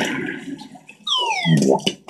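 Cartoon slapstick sound effects: a crash noise that dies away over the first second, then a falling, whistle-like glide, and a couple of sharp clicks at the very end.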